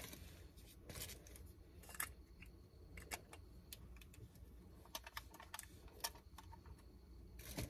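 Faint, scattered light clicks and taps as a Canon EOS M50 camera body and its lens are handled, over a low steady rumble.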